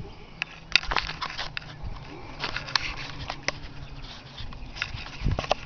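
Irregular crunching and crackling in dry trimmed grass close to the microphone, a scatter of sharp clicks with a cluster about a second in and another near the end, over a faint low steady hum.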